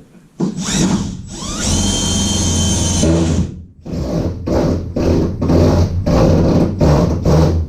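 Cordless drill driving a self-tapping screw into the van's sheet steel. The motor winds up to a steady high whine for about two seconds and stops, then runs in short repeated bursts, about three a second, as the screw is pushed home.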